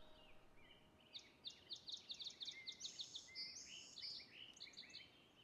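Faint birdsong in woodland: quick runs of high chirps and short trills, starting about a second in and fading out near the end.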